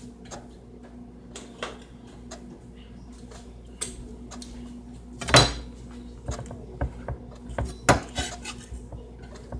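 Utensil clinking and scraping against a skillet: a scatter of light knocks, with two louder ones about halfway through and a couple of seconds later.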